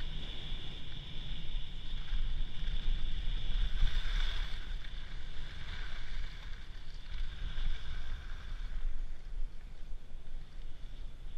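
Wind buffeting a skier's action-camera microphone in a steady low rumble, with the swishing hiss of skis sliding over packed snow that swells a few times in the middle.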